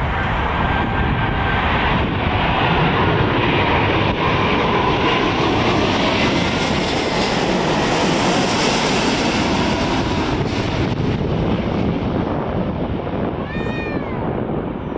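British Airways Airbus A380 on final approach passing low overhead: loud jet noise from its four Rolls-Royce Trent 900 engines. The noise swells to its peak about halfway through and then starts to fade, with a faint engine whine that slowly falls in pitch.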